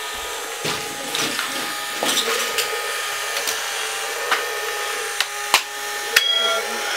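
Steady whir of a small electric motor, with a few sharp plastic clicks about five and six seconds in.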